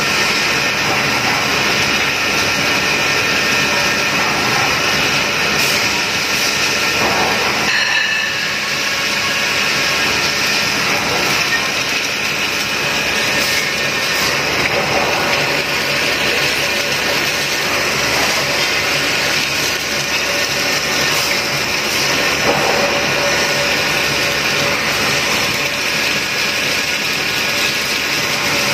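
Bridgeport CNC machining center cutting metal under flood coolant: a steady mix of spindle and cutting noise with the hiss and splash of coolant spray, carrying a few steady whining tones. The noise dips briefly about a third of the way through.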